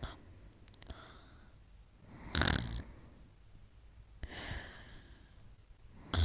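Snoring in sleep: a loud, rasping snore about two seconds in, a softer, longer breath around the middle, and another loud snore starting at the very end.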